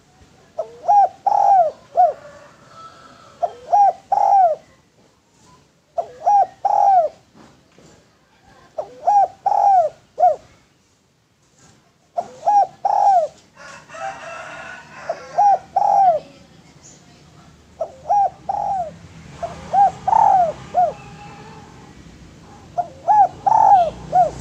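Spotted dove (derkuku) cooing in short phrases of three or four notes, a phrase every two to three seconds.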